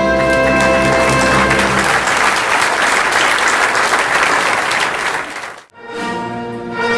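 Audience applauding over music, the clapping growing dense about a second and a half in. Near the end it cuts off suddenly, and music with sustained tones carries on.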